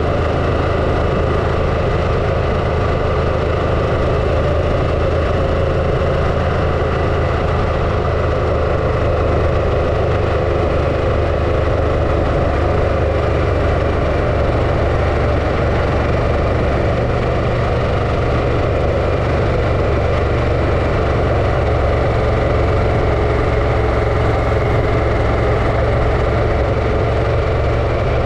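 Harley-Davidson Pan America's V-twin engine running steadily at an even pitch, loud and close to the microphone.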